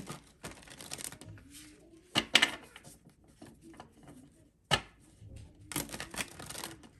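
A deck of tarot cards shuffled by hand: several short bursts of papery card riffling and rustling, the loudest about two seconds in, with a sharp snap of the cards near five seconds.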